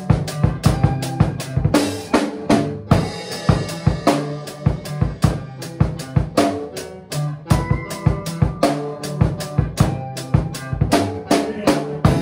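A rock band playing live, with the drum kit close and loudest: quick kick, snare and cymbal hits that never let up. Held low notes from an amplified guitar run under the drums.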